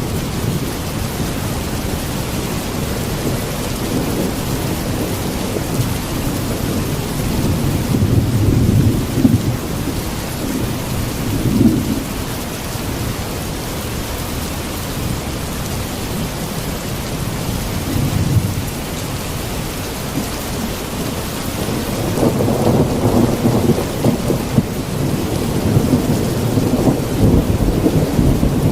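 Steady heavy rain with low rolling rumbles of thunder underneath. The rumbles swell about eight seconds in and again through the last few seconds.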